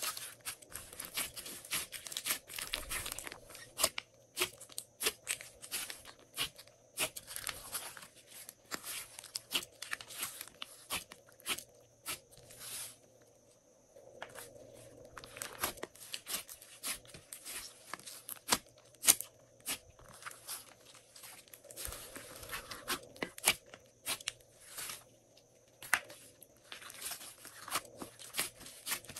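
Slime squeezed, stretched and pressed flat by hand: sticky crackling, small pops and squelches, a string of irregular sharp clicks and short crackly bursts, with a brief lull about halfway.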